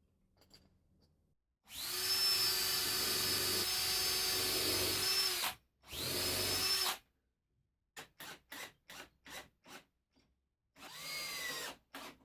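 Power drill: its motor runs with a steady whine for about four seconds, stops, and runs again briefly. Then come eight quick trigger blips and a last short run whose pitch falls as it winds down.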